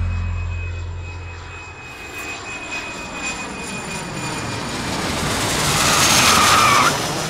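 Jet airliner passing by: the engine rush builds steadily to its loudest near the end, with a falling whine, then cuts off abruptly. The last of a music track fades out in the first second or so.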